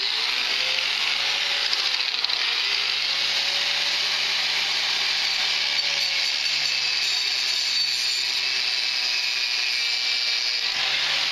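Power tool running steadily as it cuts through a bike chain lock, its motor pitch wavering slightly as it is loaded.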